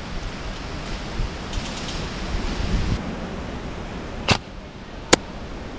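Two sharp snaps from an airsoft DMR firing, a little under a second apart, over steady wind noise on the microphone.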